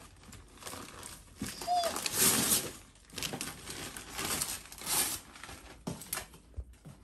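Tissue paper and a paper gift bag crinkling and rustling in irregular bursts as a present is pulled out, loudest about two seconds in and again near five seconds.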